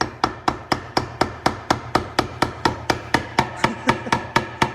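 Rapid, even hammer blows on metal, about four strikes a second, each leaving the same ringing tone.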